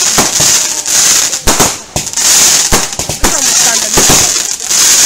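Aerial fireworks bursting in quick succession: many sharp bangs a second over a dense, steady high hiss of gold crackling stars.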